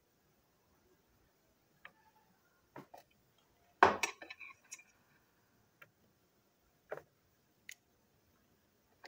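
Small hard plastic and metal parts of a model steam locomotive being handled during disassembly: scattered light clicks and taps, with a louder clatter of several quick knocks about four seconds in.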